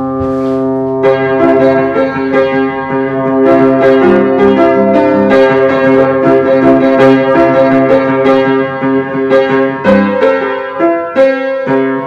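Upright piano being played: a low chord rings on under a run of struck higher notes, with a fresh chord about ten seconds in.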